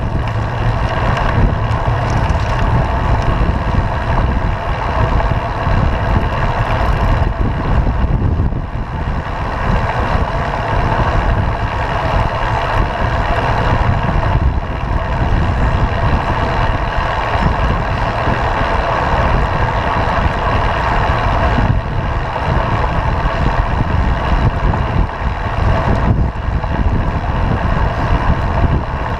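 Steady wind rumble and road noise from a camera riding on a moving road bicycle.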